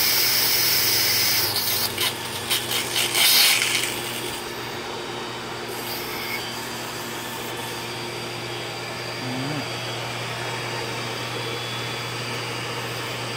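Air hissing out of the opened air relief valve on top of a Pentair Triton II sand filter, breaking into a sputter about two seconds in and cutting off about four seconds in. The pool pump's steady hum carries on underneath.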